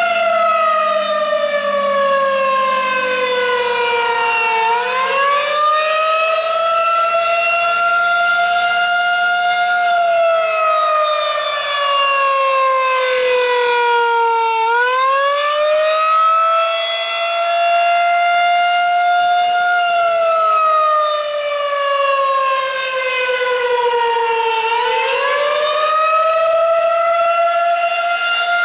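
Federal Signal 2001-SRN electromechanical outdoor warning siren sounding its Attack signal: a loud wail whose pitch slides slowly down for about five seconds, sweeps quickly back up and holds, then slides down again. The cycle repeats about every ten seconds.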